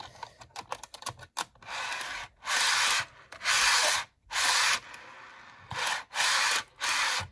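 Wheels of an HO scale model flat car rolling along sectional track as the car is pushed back and forth by hand. A few clicks as it is set on the rails, then about six short rolling runs of half a second or so each. The car rolls fairly freely.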